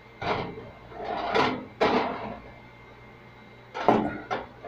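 Kitchen oven door and rack being handled as a pot pie is put in to bake: several separate clunks and short sliding noises spread over a few seconds.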